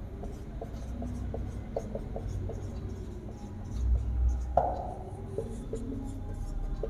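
Marker pen writing on a whiteboard: a string of short strokes and taps, with a dull low bump about four seconds in.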